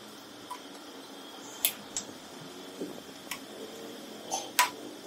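Several sharp metal taps, spaced irregularly, from a hammer striking a screwdriver held against a starter motor's carbon brush holder clamped in a steel vise, working loose a grounded part. The loudest taps come about a second and a half in and near the end.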